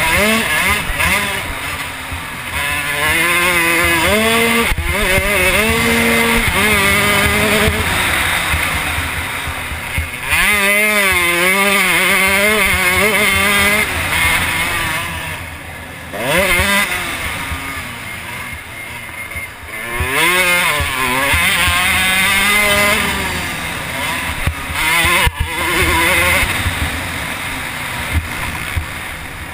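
Motocross dirt bike engine under hard riding, revving up and shifting through the gears, the pitch climbing and dropping again and again as the throttle is opened and chopped, with short drops where the rider rolls off.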